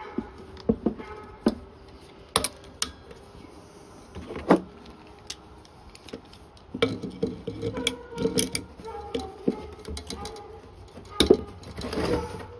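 Metal hand tools clinking and clicking as pliers and locking pliers are handled and clamped onto rivets set in a woven brake lining block on a steel brake band. Several sharp clicks come at uneven intervals, the loudest near the end.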